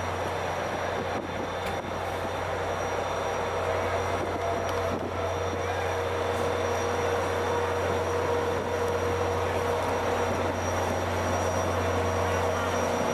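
Caltrain EMD F40PH diesel-electric locomotive running at a standstill by the platform: a steady low drone with a steady higher tone, unchanging throughout.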